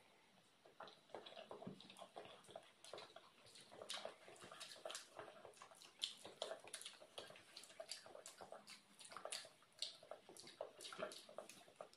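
Faint eating sounds: wet chewing of boiled egg with full mouths and the peeling of eggshells, many small irregular clicks and crackles.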